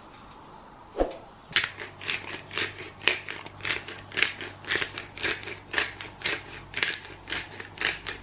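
Hand-held pepper mill being twisted over the meat, grinding peppercorns in crunchy crackling clicks, about two per second, after a single knock about a second in.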